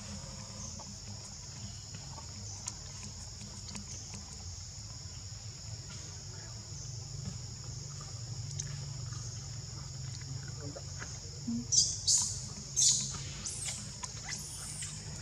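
Steady high-pitched insect drone, with a quick cluster of loud, short, high chirps about twelve seconds in.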